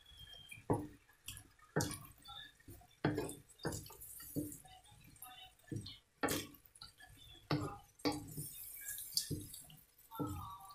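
Spatula knocking and scraping against a wok while tossing stir-fried vegetables: irregular sharp knocks, roughly one a second.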